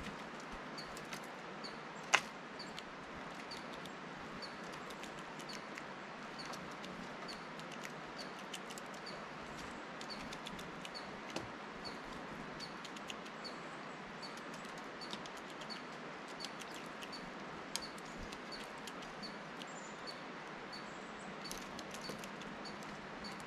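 Steller's jay feeding at a dish feeder of sunflower seeds: scattered light clicks and taps of its bill on seeds and the dish, with one sharp knock about two seconds in. A faint high chirp repeats steadily, about one and a half times a second, over a soft steady hiss.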